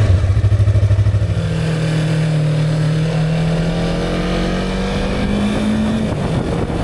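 Motorcycle engine running, heard from the rider's seat. At first it pulses heavily at a low pitch; from a little over a second in it holds a steady note that climbs slowly as the bike picks up speed, then drops about six seconds in, as at a gear change or easing off the throttle.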